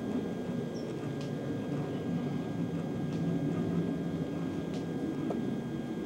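Steady low hum and hiss of an old home camcorder's sound track, with a few faint clicks.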